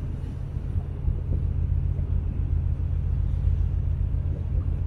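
Steady low rumble on the deck of a ferry under way at sea.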